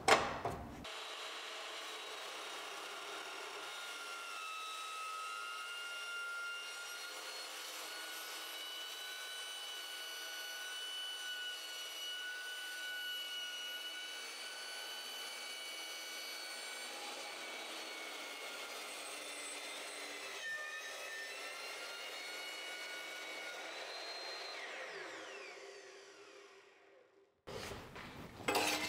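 Evolution EVOMAX metal-cutting chop saw cutting through 4 inch square steel tubing with its steel-cutting blade: a steady ringing with several high tones held through the cut. About 24 seconds in, the pitch falls as the blade winds down and stops, and a few faint clicks follow near the end.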